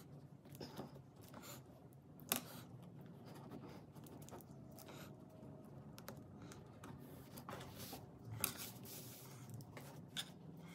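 Faint handling noise from hand-sewing a wrapped-rope wall hanging: warp cord drawn through the rope and hands shifting it. There are a few sharp clicks, the loudest about two seconds in and again about eight and a half seconds in.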